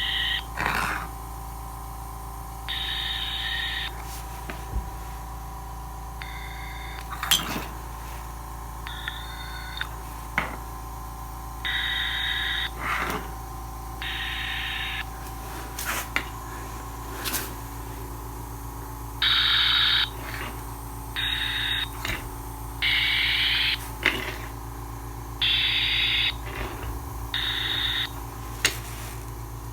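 Output of an acoustic water-leak detector: a steady electronic hum, broken about a dozen times by roughly one-second bursts of high hiss that start and stop abruptly, with scattered sharp clicks between them.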